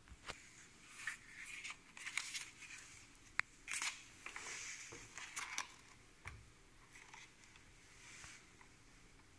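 Packaging being handled during unpacking: crinkling and rustling with small clicks and knocks. It is busiest in the first six seconds, with one sharp click about three and a half seconds in, then turns faint.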